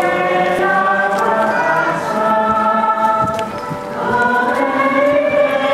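A choir singing a slow hymn, holding long notes, with a brief drop in level around four seconds in before the next phrase.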